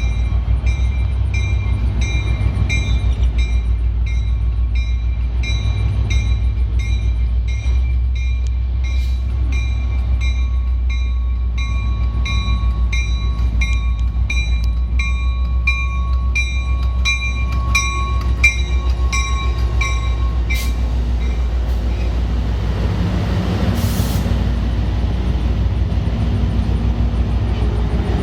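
Train rumbling low and steady, with a bell ringing in quick, even strokes that stops about 20 seconds in.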